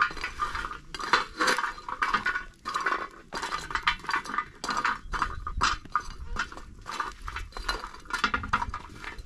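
Irregular clinking and knocking of metal dishes and utensils, many short strikes in quick succession.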